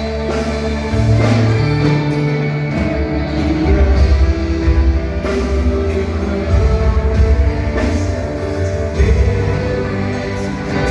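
Live church worship band playing an instrumental passage of a gospel song, with drums, guitar and a strong bass line changing note every second or so.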